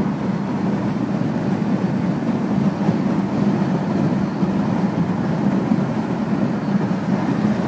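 Steady low rumble of a car driving at highway speed: tyre and wind noise.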